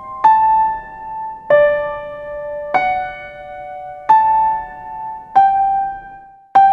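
Slow, gentle electric-piano music: six soft chords struck about every second and a quarter, each ringing out before the next.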